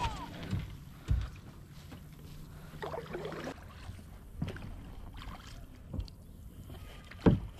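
Kayak being paddled: paddle strokes through the water with a few short knocks, the loudest near the end.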